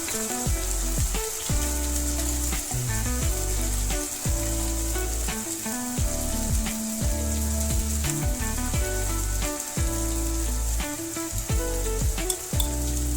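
Spice masala frying and sizzling in oil in a pan as it is stirred, over background music with a steady beat and deep falling bass notes.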